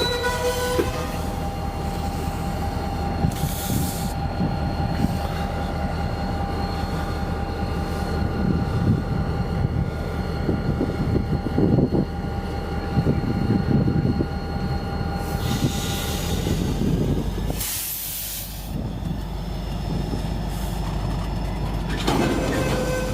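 An EMD SD40-2 diesel locomotive's 16-cylinder two-stroke engine working as the train accelerates, with its cars rolling over the rails. Steady high-pitched ringing tones sound over it until a few seconds before a brief hiss near the end.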